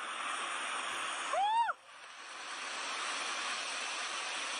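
Steady rushing of a muddy flash-flood torrent pouring down a hillside. About a second and a half in, a person gives one short high cry; the rushing dips right after it and builds back up.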